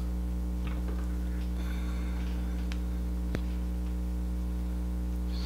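Steady electrical mains hum, with a faint click about three seconds in.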